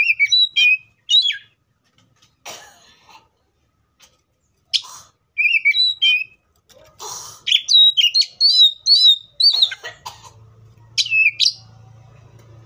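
Oriental magpie-robin singing: short bursts of clear whistled notes that sweep up and down, mixed with a few short harsh notes, with pauses between phrases.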